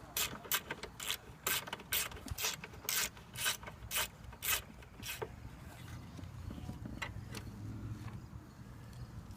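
Ratchet clicking as screws are driven back in, about two clicks a second, stopping about five seconds in.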